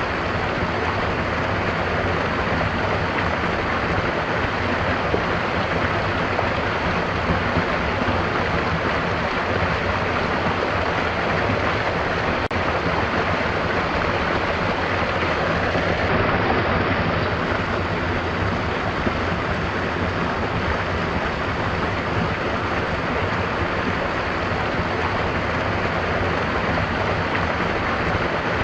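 Stream water flowing: a steady, even rush of running water.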